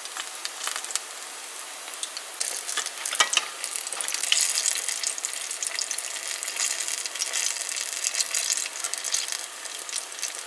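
Vegetable pakoras deep-frying in hot oil: a steady sizzling crackle that grows louder a couple of seconds in, with a few sharp clicks about three seconds in.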